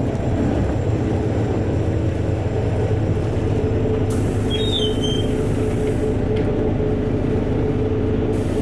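Cabin of a LiAZ-4292.60 city bus on the move: steady drone of the engine and drivetrain, with a steady whine and road noise. A brighter hiss joins about halfway through.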